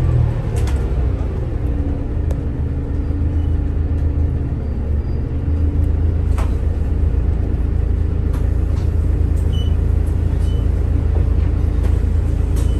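Volvo B8RLEA bus's diesel engine and ZF EcoLife automatic gearbox. The engine note falls over the first couple of seconds, then settles into a steady low rumble with scattered rattles and knocks.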